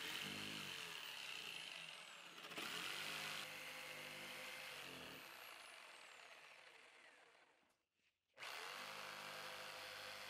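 Bosch corded jigsaw rough-cutting a curve through thick MDF, its motor running steadily with its pitch sagging and recovering a few times. It fades out about seven seconds in and starts up again a second or so later.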